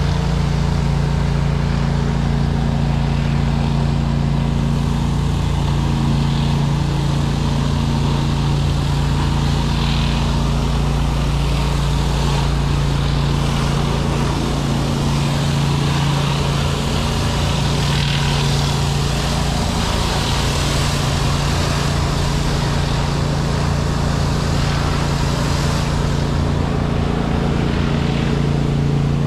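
A pressure-washing rig's gas engine runs at a steady speed, a constant drone, with the hiss of water spray over it.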